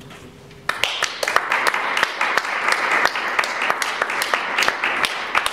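Audience applauding, starting suddenly about a second in.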